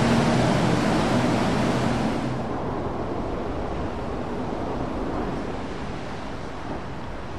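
A speeding motorboat's engine running under the loud rush of its spray. About two seconds in the engine sound stops abruptly, leaving the churning of wake water.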